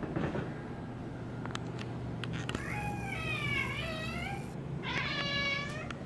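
Siamese cat meowing twice at a door during heavy rain: a long, drawn-out meow that bends up and down in pitch, then a shorter one. The cat keeps meowing at the door non-stop because of the rain.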